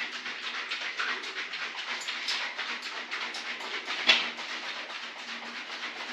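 A can of expanding foam being shaken, its mixing ball rattling inside with repeated strokes and a harder knock about four seconds in.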